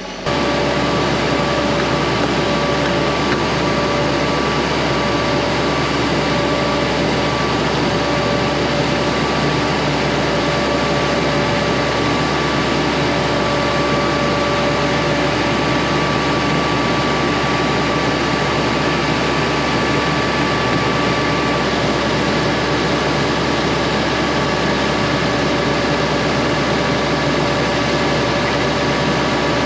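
A farm vehicle's engine running at a steady speed: a constant drone with a few held whining tones. It cuts in suddenly right at the start.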